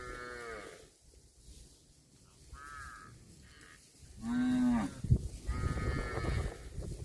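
Cattle mooing: several calls in a row, the loudest about four seconds in, with a sharp knock just after it.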